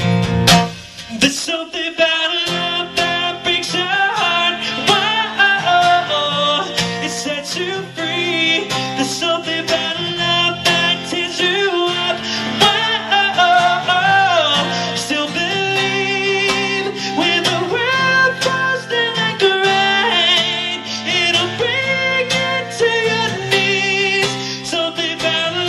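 Live acoustic performance: a male singer's wordless vocal runs and ad-libs, with wavering held notes and sliding pitch, over acoustic guitar.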